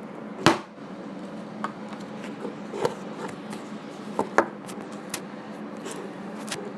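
Craft materials being handled on a tabletop: a handful of sharp clicks and knocks, the loudest about half a second in and a quick pair a little past four seconds, over a steady low hum.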